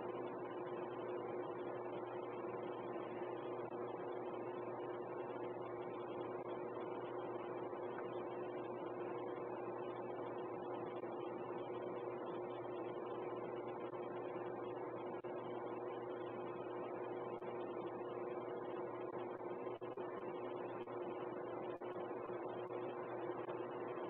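Steady hum with a couple of even, unchanging tones over a hiss, heard through an outdoor security camera's live audio feed.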